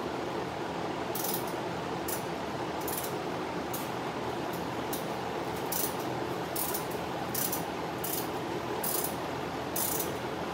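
Ratchet wrench clicking in short strokes, roughly one a second, over the steady rush of a large drum fan.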